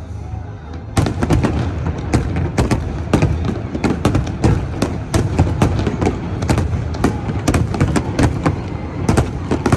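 Fireworks show: from about a second in, a rapid, continuous barrage of firework bursts, sharp crackling reports and deep booms coming several a second over a steady low rumble.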